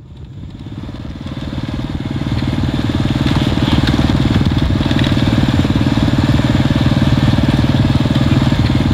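Small motorcycle engine running at a steady, even pace while riding, fading in over the first couple of seconds.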